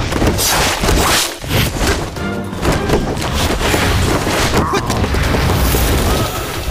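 Soundtrack music under a hand-to-hand fight, with repeated sudden impact hits and swishes from the fight's sound effects.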